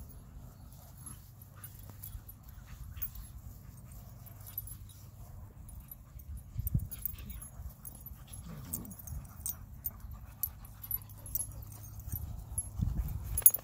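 Several dogs playing together, with panting and light whimpering. The loudest moments come about halfway and near the end, over a steady low rumble.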